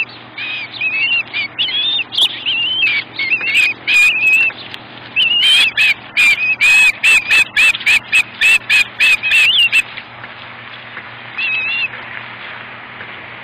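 Ospreys calling: a rapid run of sharp, high whistled chirps that thickens into an almost continuous series in the middle, stops suddenly about ten seconds in, then one short call follows.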